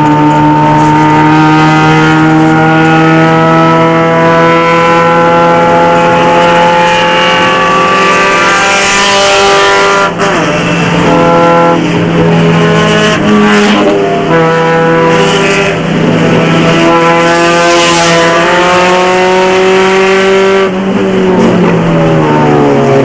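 A Honda race car's four-cylinder engine heard from inside the cabin, running hard at high revs. There is a brief break in the sound about ten seconds in, and near the end the pitch falls as the car slows.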